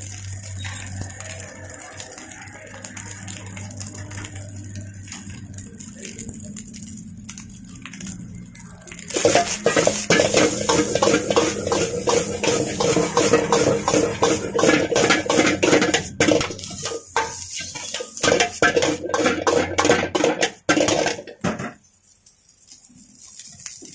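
A steel ladle scrapes and clanks against an iron wok as fried rice is stirred and tossed, with frying noise. This starts about nine seconds in and stops about two seconds before the end. Before it there is a steady low hum.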